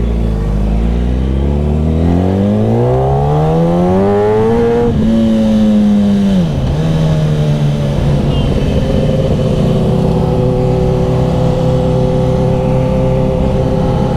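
Sport motorcycle engine pulling away under acceleration, its pitch rising for about five seconds. It drops sharply at a gear change, eases off, then runs steadily at an even cruising speed.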